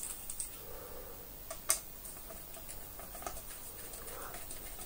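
Faint ticks and small clicks of a screwdriver turning a screw into the plastic body of a Dyson DC24 vacuum cleaner, with one sharper click about a second and a half in.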